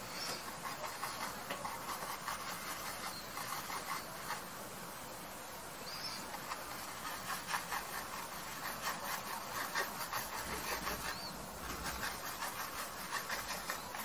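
Small paintbrush working oil paint onto canvas: runs of quick, scratchy strokes and dabs, with short pauses between them.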